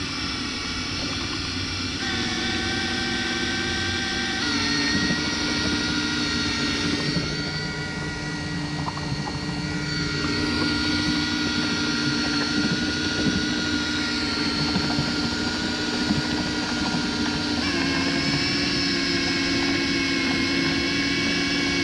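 Brushless 18-volt cordless drill driving a boat's propeller shaft, running flat out with a steady whine that shifts in pitch a few times as the motor's speed changes under the load of the tender and two people.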